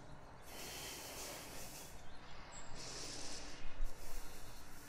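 A woman breathing audibly in slow, airy breaths, each lasting a little over a second, with the second breath louder.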